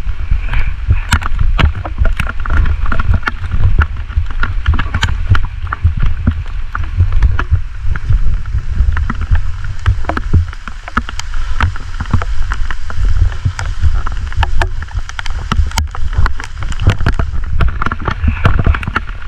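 Footsteps wading and splashing through river water, with irregular rustling and clatter of gear and a steady low rumble of wind or handling on the microphone.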